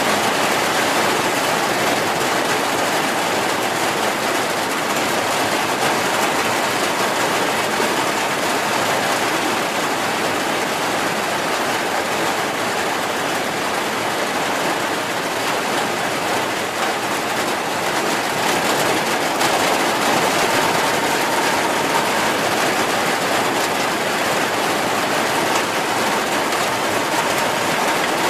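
Heavy rain falling in a steady downpour: an even hiss that holds without a break.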